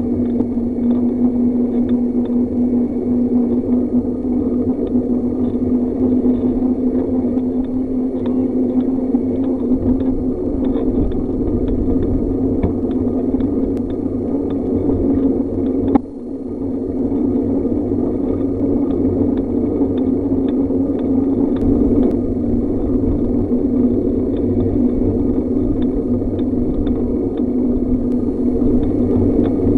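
Bicycle and WeeHoo trailer bike rolling along a paved road: a loud, steady rolling hum of tyres and drivetrain. A single click with a short dip in level about halfway through.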